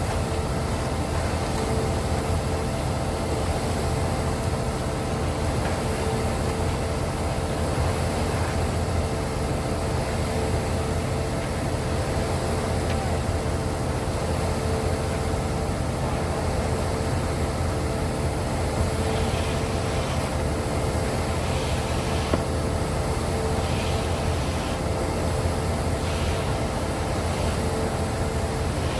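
Engine of concrete-pouring equipment running steadily at constant speed. About two-thirds of the way through, a series of faint short swishes comes roughly a second apart.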